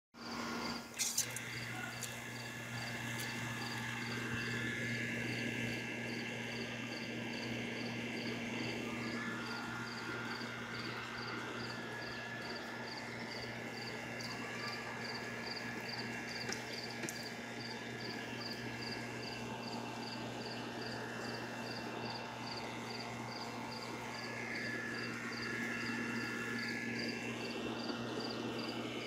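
Aeroponic bucket cloner running: a water pump's steady low hum under the hiss of the 360-degree spinner sprayer throwing water inside the bucket. A faint high chirp repeats about twice a second throughout.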